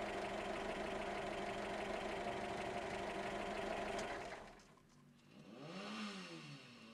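Air-cooled flat-four engine of a 1964 VW Beetle idling steadily, which stops abruptly a little over four seconds in. Afterwards only faint tones rise and fall.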